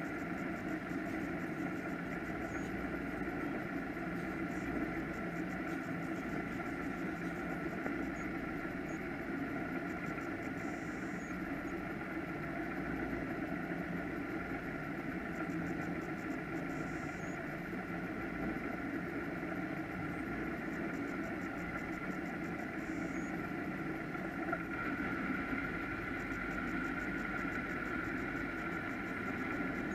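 Offshore powerboat engines idling steadily, a low even rumble with a hum over it. A higher engine note grows louder in the last few seconds.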